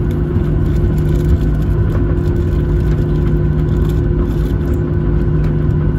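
Boeing 737-700's CFM56-7B engines heard inside the passenger cabin during taxi: a steady drone with a constant low hum.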